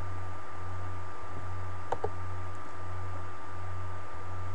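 A computer mouse button clicks once, press and release close together, about two seconds in. Under it runs a steady low electrical hum.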